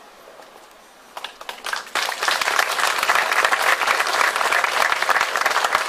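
Audience applause: a few scattered claps about a second in, swelling into full, steady clapping from about two seconds.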